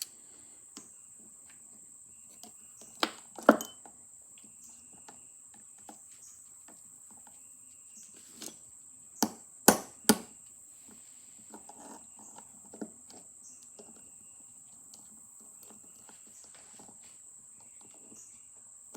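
Metal tools and parts knocking and clattering on a workbench as a punch block is set out for punching a bearing out of a phonograph governor: a pair of sharp knocks about three seconds in, then a cluster of louder knocks around nine to ten seconds, with light clicks between.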